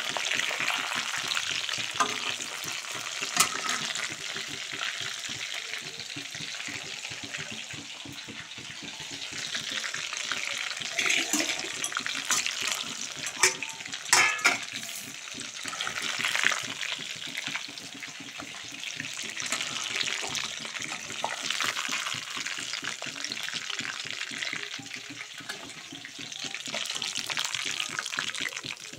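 Chicken meatballs (rista) deep-frying in hot oil, a steady sizzle. A few sharp clicks stand out, the loudest a little past the middle.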